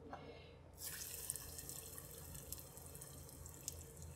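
Breaded goat cheese rounds going into hot coconut oil, faint sizzling with small crackles that starts about a second in as the first piece hits the oil.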